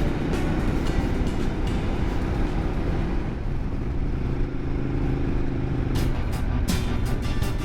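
Motorcycle engine running steadily while riding on the road, with wind and road noise.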